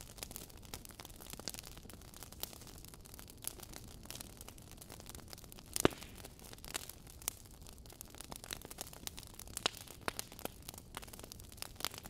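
Burning logs crackling in a fireplace: frequent sharp pops and snaps over a steady low rumble, with one much louder pop about six seconds in.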